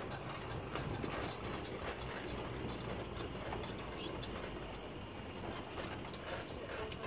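Motorcycle tricycle riding along a concrete road: the engine and road rumble run steadily under a constant rattling and clicking from the vehicle's frame and body.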